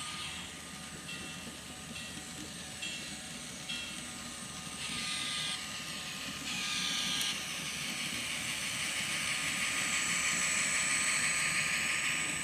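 Model diesel locomotive's DCC sound decoder playing engine sounds through its small speaker as the train runs past, with short bursts of air hiss about five and seven seconds in; the hiss and running noise grow louder through the second half.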